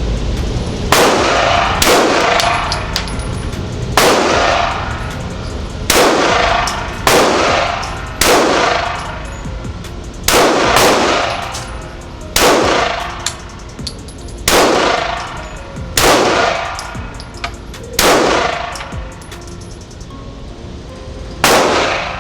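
About a dozen single gunshots fired one at a time, roughly one to three seconds apart, each ringing out in the echo of an indoor shooting range.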